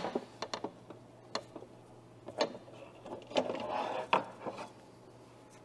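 Hand removal of the plastic shroud from a Factory Cat walk-behind scrubber's disc scrub deck: scattered light clicks and knocks of the shroud and its fasteners being worked loose, with a small cluster of them a little past three seconds in.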